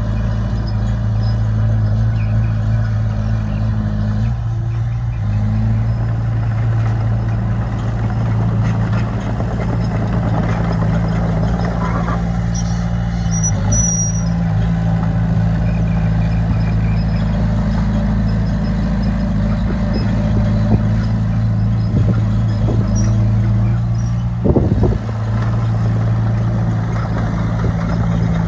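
Diesel engine of heavy earthmoving machinery running under load. It holds a steady pitch that shifts a few times, with occasional metallic knocks.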